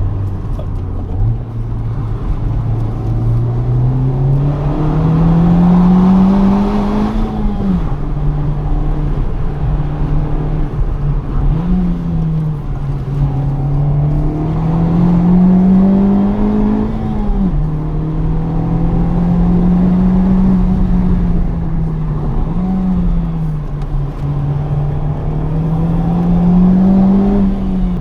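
Honda Civic Type R FK8's turbocharged 2.0-litre four-cylinder engine pulling up through the revs three times, its pitch dropping sharply at each gear change, with steadier running and two short blips of revs in between.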